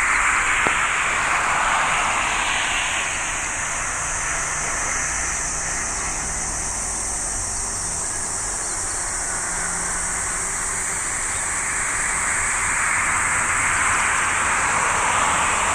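Jet airliner engine noise, a broad roaring rush that is loud at the start, eases off in the middle and builds again near the end.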